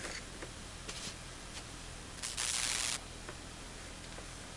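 Faint light taps of a plastic stylus on a handheld vector network analyser's touchscreen, with a short rustling hiss about two and a half seconds in, over steady background hiss.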